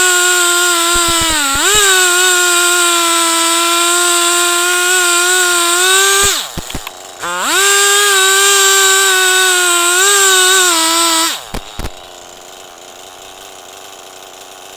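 Chainsaw held at high revs while ripping a log lengthwise in an Alaskan-style chainsaw mill. The engine note sags briefly early on. About six seconds in the throttle is let off for a moment and the pitch drops, then it comes back up. Near the end the saw drops off to a much quieter low running sound.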